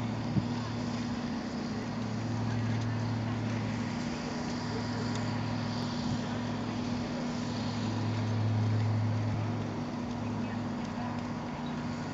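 A steady low engine hum, swelling and fading every few seconds.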